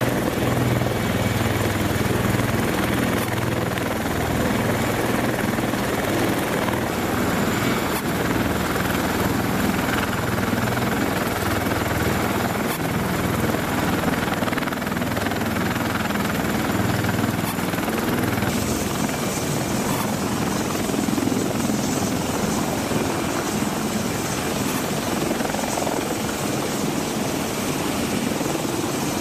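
CH-53E Super Stallion heavy-lift helicopter hovering close by: steady, loud rotor and turbine-engine noise with a low rumble. The tone of the noise shifts about two-thirds of the way through.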